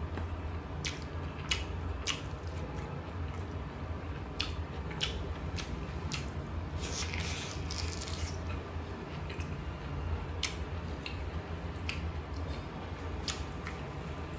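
Close-up eating sounds: wet chewing and lip smacks with scattered sharp clicks, and a burst of crunching around 7 to 8 seconds in as a crisp raw vegetable slice is bitten. A steady low hum runs beneath.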